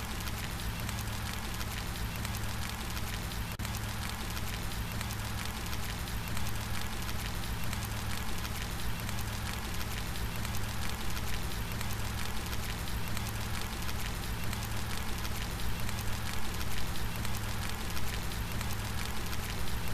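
Steady rain: a dense hiss with many small drop splashes and a low rumble underneath, growing a little stronger in the second half.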